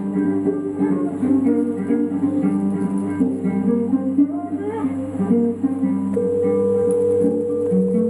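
Music led by plucked and strummed acoustic guitar, with notes changing briskly and one longer held note near the end.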